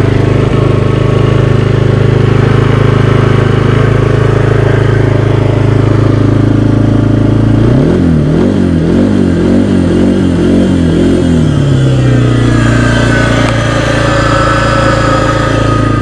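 A 2016 Kawasaki Brute Force 300 ATV's single-cylinder engine idles steadily just after starting. About eight seconds in it is revved up and down a few times, then it settles back to idle. It carries a noise from the CVT, a grinding on the left side by the belt, that the owner says is definitely not supposed to be there: the sign of a failing bearing behind the clutch pack.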